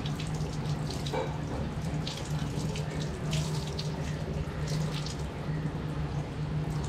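Water running from a garden hose and splashing over a wet dog's coat and onto a tiled floor as shampoo is rinsed out, with a steady low hum beneath.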